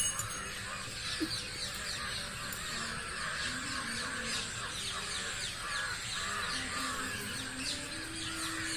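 A dense chorus of many small animals calling at once: overlapping chirps and short, quickly falling calls that keep up steadily without a break.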